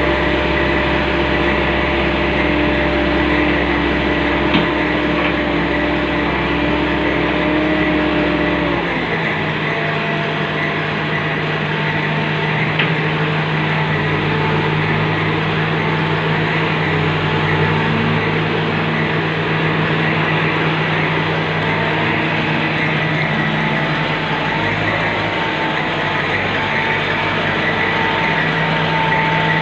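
Wheeled walking excavator's diesel engine running steadily while its hydraulics move the legs and boom. About nine seconds in, the engine note drops to a lower pitch and holds there.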